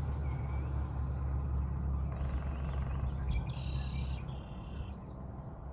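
Birds calling outdoors: a brief whistle, then a couple of short calls with several stacked tones, and a few thin high chirps, over a steady low rumble that fades near the end.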